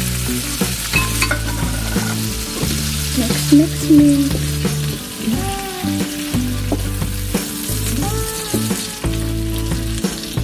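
Tuna and sliced tomatoes sizzling in oil in a nonstick frying pan, stirred and broken up with a wooden spatula.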